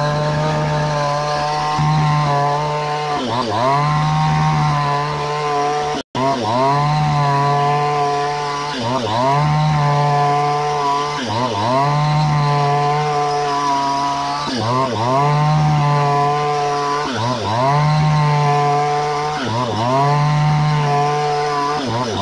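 Falcon Evo5800 two-stroke chainsaw running at full throttle while ripping lengthwise through a log; the engine note sags and recovers roughly every two seconds as the chain bites into the wood under load. The sound cuts out for an instant about six seconds in.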